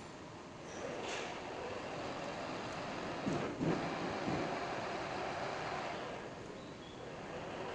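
Steady metalworking noise from a workshop machine at work, louder for a moment about three and a half seconds in.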